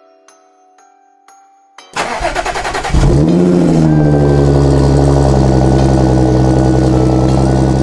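Soft chime-like notes, then the Audi S5's 3.0 supercharged V6 starts through its newly fitted AWE Touring exhaust: about a second of cranking, a rev flare as it catches, then a steady idle.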